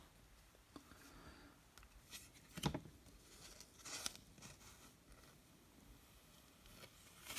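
Faint handling of trading cards: a few soft slides and taps as cards are moved through a stack, the clearest about two and a half seconds in.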